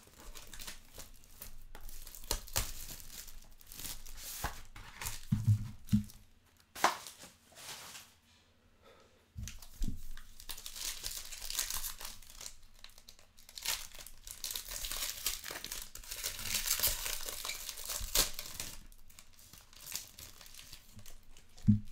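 Plastic shrink wrap and a foil trading-card pack crinkling and tearing as they are pulled off and opened by hand. The crinkling comes in bursts, pauses briefly about eight seconds in, then runs denser through the second half.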